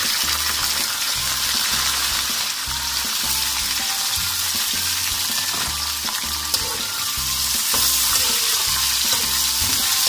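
Matchstick-cut potatoes frying in hot oil in a metal wok: a steady, loud sizzle.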